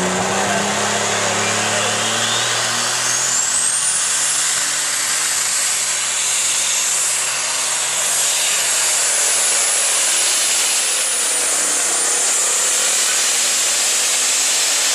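Case IH open super stock pulling tractor's engine at full power under the load of the sled. A high turbocharger whine climbs over the first four seconds and then holds over the loud engine noise.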